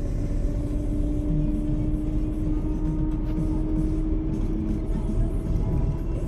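Steady road and engine noise from inside a moving vehicle travelling at speed: a dense low rumble, with a steady hum held from about half a second in until nearly five seconds.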